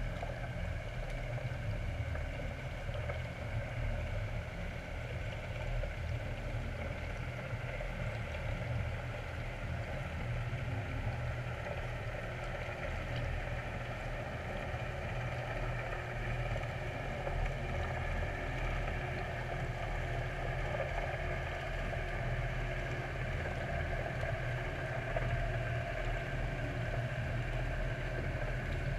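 Steady low underwater rumble with a few steady tones above it, heard through a GoPro's waterproof housing submerged in harbour water.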